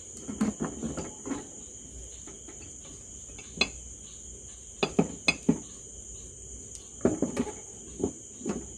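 Spoon and small bowl clinking and knocking against each other and the bamboo tube as ghee is spooned in: scattered sharp taps, several close together about five seconds in. A steady high cricket chirring runs underneath.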